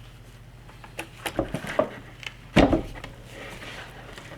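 Handling noise from rifle parts being set down and moved: a few light clicks and knocks about a second in, then one louder knock about two and a half seconds in, over a low steady hum.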